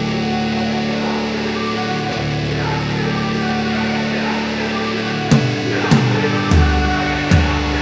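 Background rock music with guitar. Sustained chords until about five seconds in, then a beat of sharp hits comes in.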